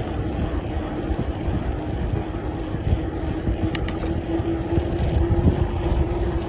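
Bicycle riding along a tarmac street: wind buffeting the microphone over the rumble of the tyres, with a steady whine throughout.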